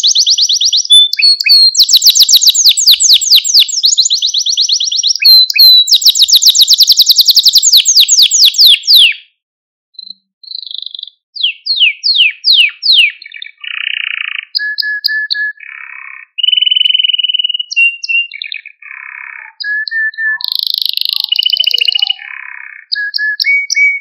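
Male domestic canary singing. It opens with long, very fast trills of rapidly repeated notes, pauses briefly about ten seconds in, then moves into varied phrases of falling sweeps, held whistles and buzzy notes.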